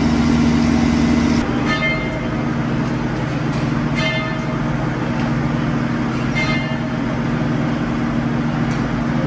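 A train's engine idling in a steady low drone at the station. About a second and a half in it cuts to a slightly quieter, lower hum, with short faint tones rising out of it three times.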